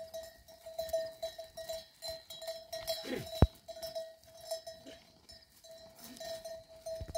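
Livestock bells clanking irregularly, each strike a short ringing tone, several a second. There is a sharp knock about three and a half seconds in.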